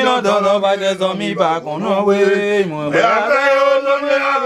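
A man's voice chanting a Vodou song in long held notes that step up and down between pitches.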